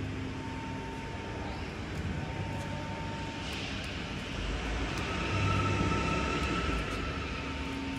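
A steady mechanical drone with a constant high whine, swelling for a few seconds in the middle.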